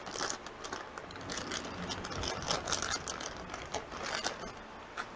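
Irregular light clicks, taps and brief scraping as a scooter's new stator coil and its wiring are handled and fitted into place.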